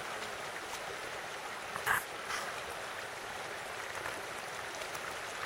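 Small shallow stream running, a steady rush of water. About two seconds in comes a brief sharp knock or splash, with a fainter one just after.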